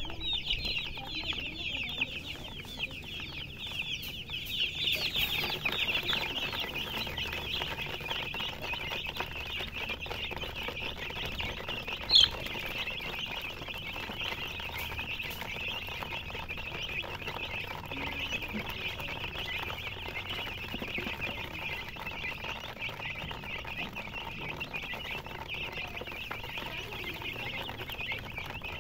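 A crowd of domestic chicken chicks peeping continuously, many high cheeps overlapping at once. One sudden, much louder sound stands out about twelve seconds in.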